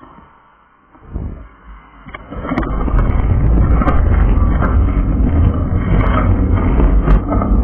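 Wind rumbling and rattling on a bike-mounted action camera as the bicycle gets moving across the road. After a quieter stretch, a loud, deep steady rumble sets in about two and a half seconds in, with scattered sharp clicks.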